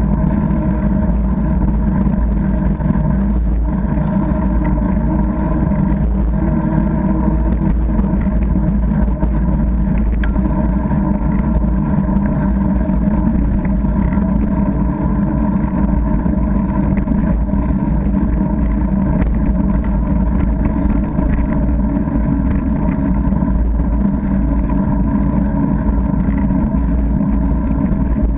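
Steady rumbling noise of a bicycle ride on a tarmac path as picked up by a bike-mounted camera: deep wind and road rumble with a constant hum over it, unchanging throughout.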